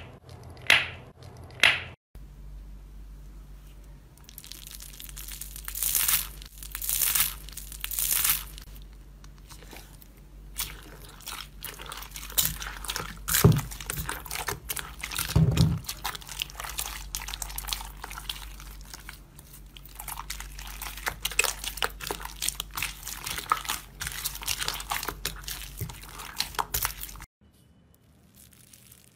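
Hands kneading red slime packed with small foam beads: dense crackling and wet squelching with louder swells, over a steady low hum. It opens with a few sharp squeaks from squeezing a red gel-filled squishy, and near the end drops suddenly to faint rustling as a hand presses into a bowl of dry foam beads.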